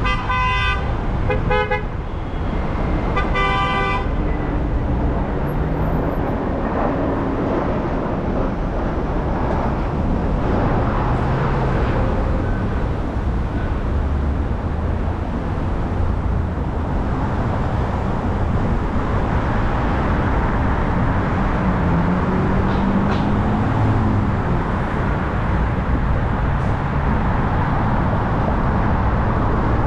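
A car horn honks three short times in the first four seconds, over steady road and traffic noise from driving through city streets.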